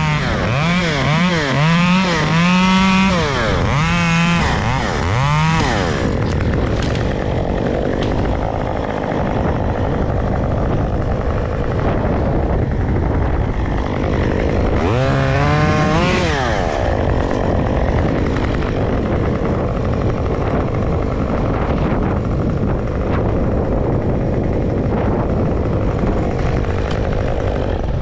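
Chainsaw revved in short bursts, its pitch rising and falling about five times in the first six seconds and once more about halfway through, over steady wind noise on the microphone.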